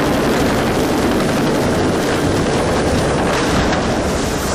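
Tandem-rotor helicopter coming in to land on a ship's deck: loud, steady rotor and turbine noise with a fast low pulsing from the blades.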